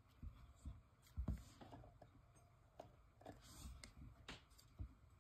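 Near silence: faint room tone with a few scattered soft knocks and clicks, the loudest about a second in.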